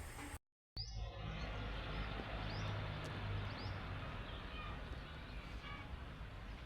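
Outdoor background noise: a steady low rumble with a few short, high chirps, after a brief cut to silence under a second in.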